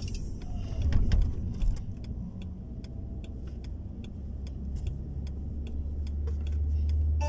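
Low rumble of a car heard inside its cabin, with a turn-signal indicator ticking evenly, about two or three ticks a second, through the middle of the stretch.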